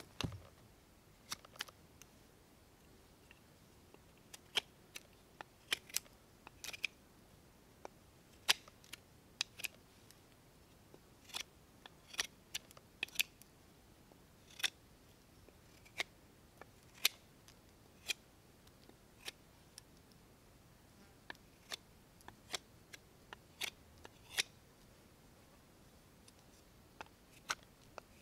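Fixed-blade knife carving a wooden fork blank: short, sharp cuts as thin shavings are sliced off the wood, coming irregularly about one or two a second.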